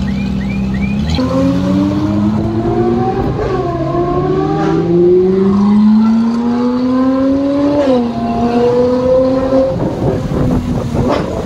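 Ferrari 458's V8 running at a steady note, then pulling away from about a second in, its pitch climbing steadily through the revs. Near two-thirds of the way the pitch drops sharply at an upshift and then holds. Near the end the note gives way to a rough, stuttering noise.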